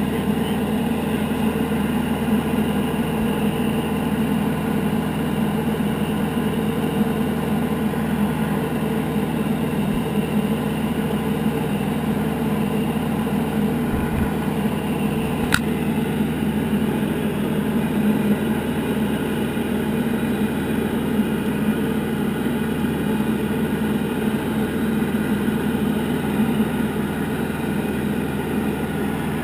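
Diamond DA40 single-engine piston aircraft's engine and propeller droning steadily in flight, heard from inside the cockpit.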